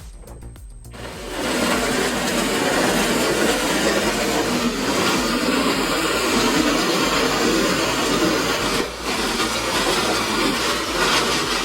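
Large wood chipper running and chipping wood: a dense, steady grinding noise that starts suddenly about a second in.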